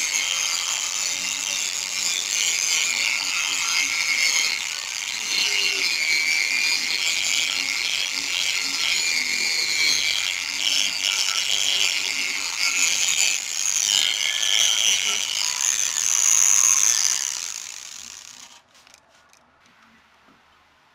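Small handheld power tool spinning a sandpaper disc on a yellow backing pad against a wet plastic headlight lens, running steadily with a high-pitched hiss that shifts as the disc is pressed and moved: machine wet-sanding to cut away the lens's yellowed, scratched surface. It winds down about 17 seconds in, followed by a few faint clicks.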